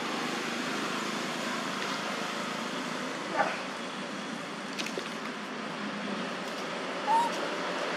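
Two brief, high squeaky calls from a macaque, about three and a half and seven seconds in, the second a short rising chirp. Under them runs a steady outdoor hiss.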